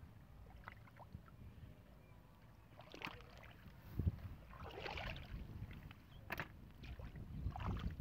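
Shallow muddy water sloshing and splashing as a barefoot person wades and gropes in it by hand, in a few short bursts, with a couple of sharp clicks among them.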